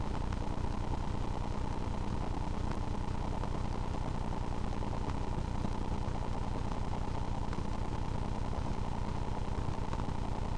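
Steady low hum and hiss with a few faint ticks, unchanging throughout.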